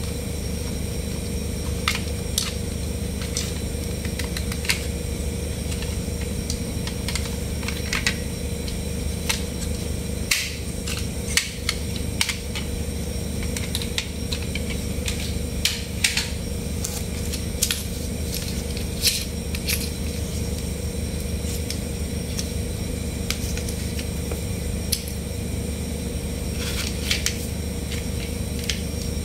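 Plastic toy trucks handled by hand: scattered light clicks and knocks of plastic parts at irregular moments, over a steady low hum.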